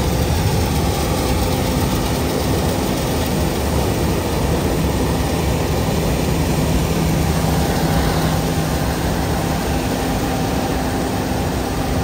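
John Deere combine harvester running steadily as it cuts soybeans and passes close by: a loud, even drone of engine and threshing machinery with a few steady hum tones.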